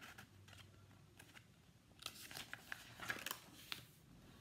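Near silence: room tone with a few faint scratchy clicks and rustles, most of them between about two and four seconds in.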